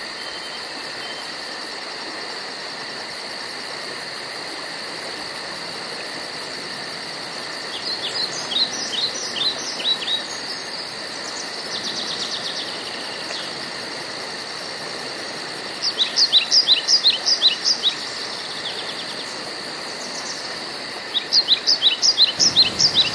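A bird calling in three quick runs of about six to eight sharp, falling notes, over a steady high-pitched drone of insects.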